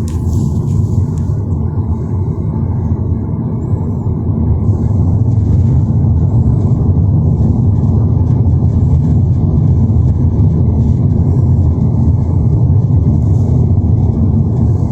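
Steady low rumble of a car in motion, like road and engine noise heard from inside the vehicle, growing a little louder about four to five seconds in and then holding steady.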